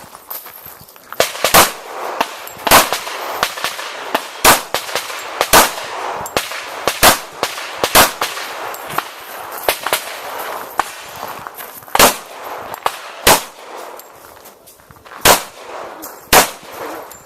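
Glock 21 .45 ACP pistol fired through a stage, about a dozen single shots at uneven intervals, with a pause of a few seconds partway through. Fainter sharp clicks and pings sound between the shots.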